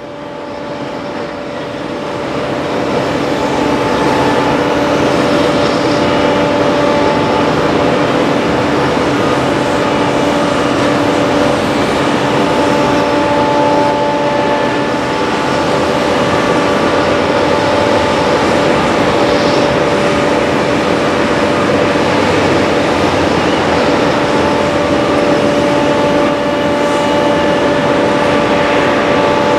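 Steady mechanical drone of airport machinery: an even rushing noise with a constant hum in several pitches, fading up over the first few seconds.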